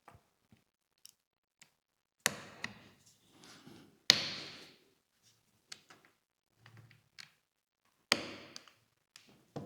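Knocks and light clicks from a camera body and small tools being handled on a work surface during disassembly, with three louder knocks about two, four and eight seconds in.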